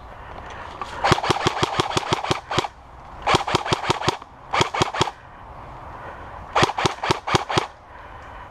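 King Arms Thompson airsoft electric gun (AEG) firing full-auto in four bursts, each a rapid string of sharp clacks; the first and longest lasts about a second and a half.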